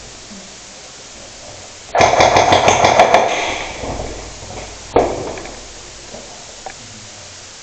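A rapid burst of about eight airsoft gun shots about two seconds in, echoing in a mine tunnel, then a single sharp crack a few seconds later that echoes away.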